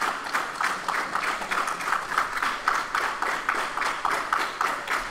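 A small crowd clapping steadily in rhythm, rallying behind a wrestler.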